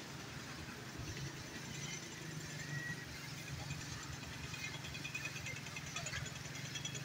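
Faint road traffic: a steady low engine hum from vehicles on the bridge, with a few faint high chirps near the end.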